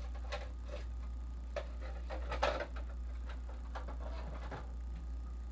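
Kitchen containers and utensils being handled: a scattered run of light clicks and knocks, the loudest about two and a half seconds in, over a steady low hum.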